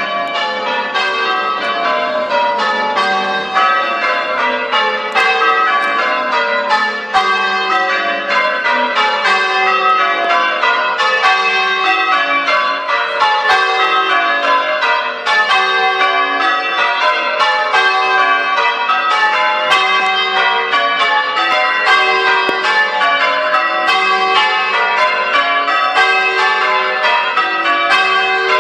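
Peal of church tower bells being rung, several bells struck one after another without a break, falling in repeated descending rows of notes.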